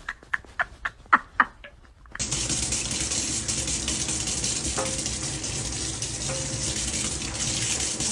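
Kitchen tap running a steady stream into a stainless-steel sink, starting about two seconds in. A few short taps come before it.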